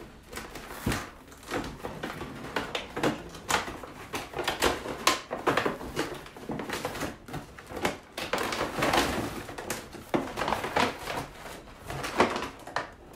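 Cardboard box being handled and opened: many irregular rustles, scrapes and light knocks as the flaps are pulled back and the box is slid off a plastic-wrapped packing tray.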